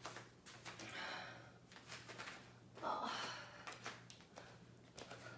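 A woman breathing out hard twice, about one and three seconds in, while doing a dumbbell lunge, with a few light knocks of feet and weights on an exercise mat. A faint steady hum runs underneath.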